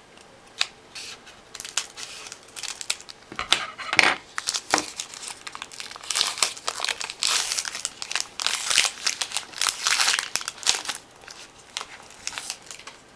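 Plastic wrapping around a trading card being crinkled and torn open by hand, an irregular rustle that grows busier midway through.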